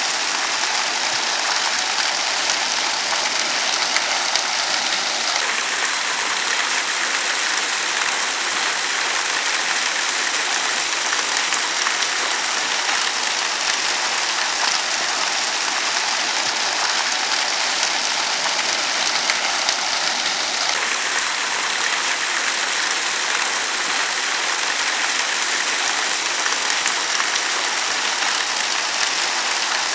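Steady rushing of falling water from a man-made waterfall, an even hiss with no break.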